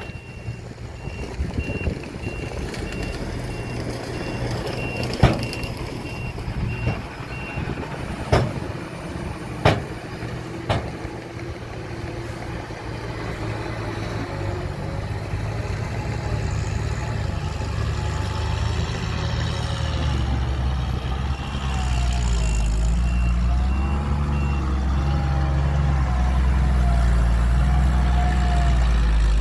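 Heavy diesel earthmoving machinery running, with a reversing alarm beeping steadily, then stopping and beeping again later. Several sharp bangs come between about five and eleven seconds in. The engine grows louder over the last third, its pitch wavering.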